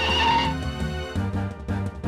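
Cartoon background music: plucked and sustained notes over a steady bass line, with a short hiss at the start.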